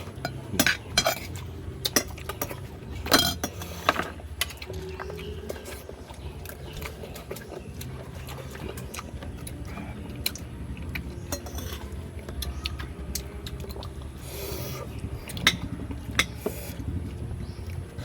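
Utensils clinking and clattering against pots and dishes, with a burst of sharp knocks in the first few seconds and scattered clinks after, over a steady low hum.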